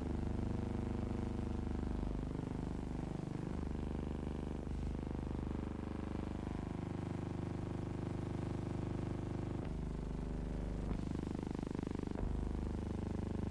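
A steady low hum and buzz of film-transfer noise, with no sound from the scene itself. Its tone shifts abruptly a few times, at each change of shot.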